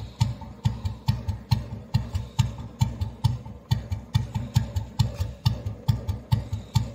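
Royal Enfield Bullet 350's cast-iron single-cylinder four-stroke engine, with its heavy crank, idling at the exhaust: slow, even thumps at about four a second.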